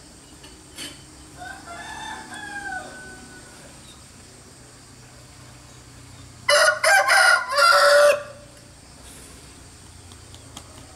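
A bird calling: a fainter call that glides up and down about two seconds in, then a loud call in several quick parts lasting about a second and a half, starting about six and a half seconds in.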